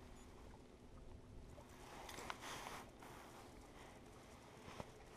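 Near silence with faint handling noise as a small bass is unhooked from a jerkbait on a carpeted boat deck: a brief rustle about two seconds in and a light click near the end.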